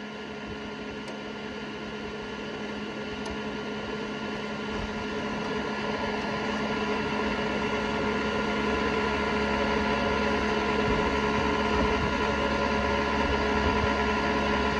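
Steady electrical machine hum from inside a DTF printer, its fans and motors running, with several steady tones, growing gradually louder.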